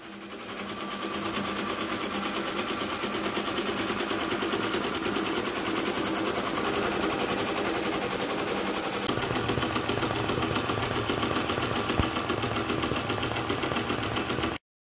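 Velles multi-needle embroidery machine stitching lettering at speed: a rapid, even, rhythmic running of the needle head. It swells in over the first second or so and cuts off abruptly near the end.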